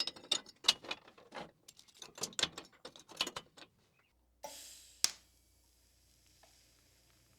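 Rapid, irregular clicks and light metallic taps for about three and a half seconds. Then a short hiss ending in a sharp click about five seconds in, followed by a faint steady hum.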